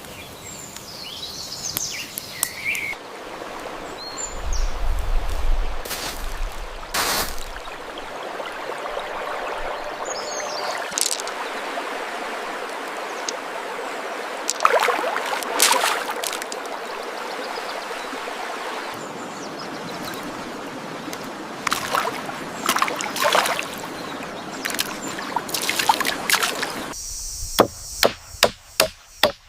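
Water trickling and splashing, with scattered knocks and clatter of handling, and a few short bird chirps. Near the end comes a run of about five sharp knocks, roughly two a second.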